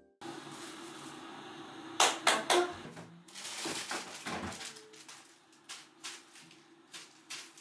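Kitchen handling noise in a small room: three sharp knocks about two seconds in, then softer clatter and a few light clicks as items are taken out and handled at the counter, over a quiet room hiss.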